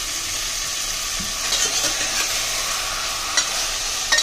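Washed raw mutton bone pieces sizzling in hot oil and fried onion in a pressure cooker, the sizzle swelling about a second and a half in as more meat goes in. A couple of sharp clicks near the end.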